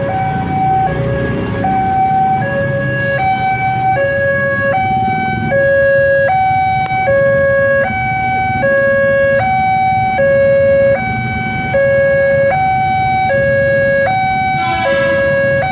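Railway level-crossing warning alarm sounding two alternating tones, a higher and a lower note each held for nearly a second, signalling that a train is approaching and the barrier is down. Low traffic and engine noise runs underneath.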